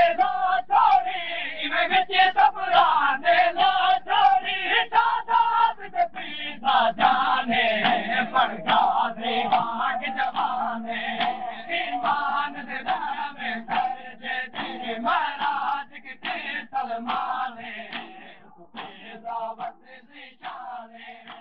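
A crowd of Shia mourners chants a noha in unison while beating their chests (matam). The sharp hand-on-chest strikes keep an even rhythm of about two to three a second. Chanting and strikes fade out over the last few seconds.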